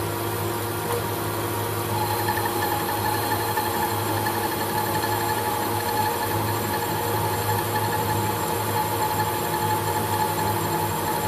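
Holbrook C8 metal lathe running with a steady hum while its tool turns down a bar of hard steel. About two seconds in a higher steady cutting tone comes in and holds as the carriage feeds along the bar.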